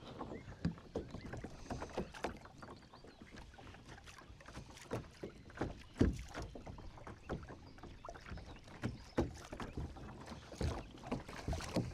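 Kayak being paddled: irregular splashes and knocks of the paddle against water and hull, with one louder knock about six seconds in.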